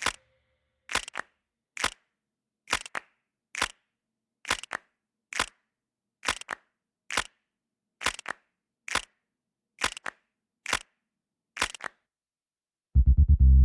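Bare beat in an instrumental backing track: sharp clap-like percussion hits, a little under one a second, some with a quieter echo hit just after, with nothing between them. The full electronic backing track with heavy bass comes back in near the end.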